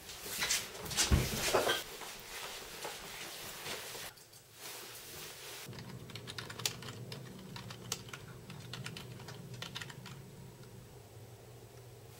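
Typing on a computer keyboard: a run of quick key clicks over a steady low hum. Before it, in the first two seconds, a few loud knocks and rustling.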